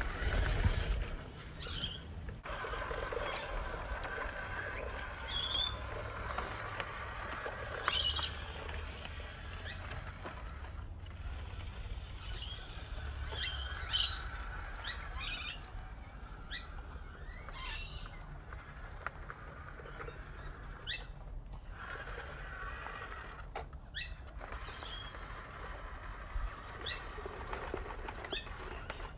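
A small-scale RC 6x6 truck's electric motor and gears whir, rising and falling as it crawls. Wind rumbles on the microphone, and short, high chirps come now and then.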